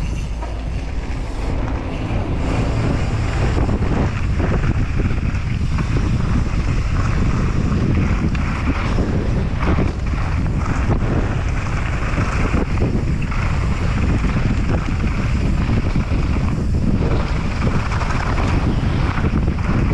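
Wind rushing over the microphone of a mountain bike descending at speed, with the tyres crunching over loose gravel and dirt and the bike rattling over the bumps in a steady stream of small knocks.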